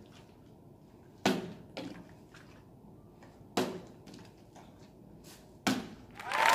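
A partly filled plastic water bottle being flipped and landing on a cloth-covered table: three thuds about two seconds apart, with smaller knocks after the first two as the bottle tips over. A louder, longer sound starts just before the end.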